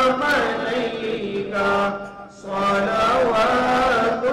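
A single voice chanting melodically, holding long notes with ornamented pitch bends and pausing briefly for breath about two seconds in.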